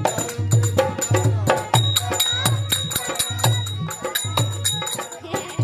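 Bhajan (devotional song) music: a low hand-drum beat about twice a second under jingling rattle percussion and a melodic line with a long held high note.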